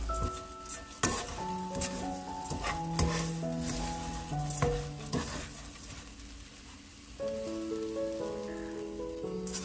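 Wooden spatulas stirring and tossing dried small anchovies and pumpkin seeds in a nonstick wok on low heat: a dry rustle with sharp scrapes and clicks against the pan, thinning out in the second half. Soft background music with steady notes plays throughout.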